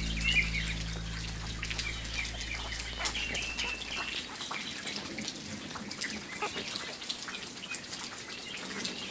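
The last held chord of the background music fading out over the first four seconds, with a few short high chirps and faint scattered clicks over it.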